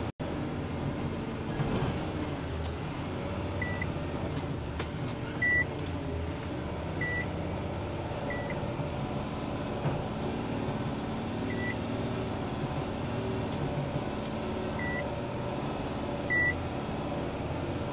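Loaded truck running steadily on the road, its engine and road noise heard from inside the cab. Seven short, high electronic beeps come at uneven intervals over the drone.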